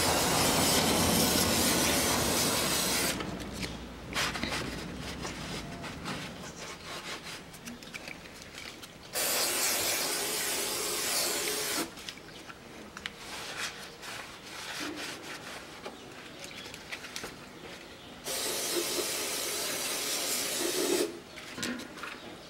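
Aerosol can of carburetor cleaner spraying onto an oily oil pan to wash off spilled engine oil: a steady hiss for about the first three seconds, then two more bursts of about three seconds each, with faint ticks in between.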